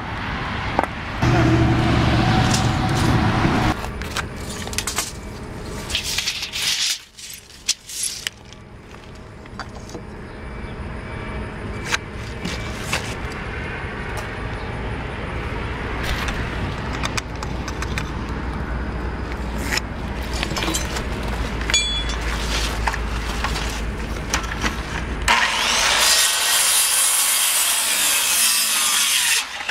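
Corded circular saw cutting across a wooden board for about four seconds near the end. Before that, scattered knocks and clicks of work, with a loud hum for a couple of seconds about a second in.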